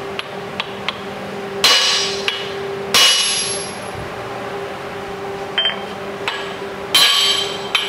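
A hammer striking a big aluminum drift held against the forged crankshaft in an aluminum LS3 block, driving the crank rearward and then forward to set its thrust. Three heavy blows, each ringing briefly, with a few light taps between them, over a steady low hum.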